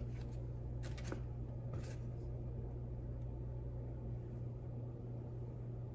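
Picture-book page being turned: a few short paper rustles and taps in the first two seconds, then only a steady low hum of room tone.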